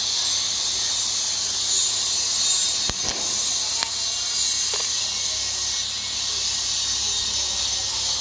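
TIG (argon) welding arc hissing steadily while laying the root pass on a stainless steel pipe joint, with a couple of faint clicks about three seconds in.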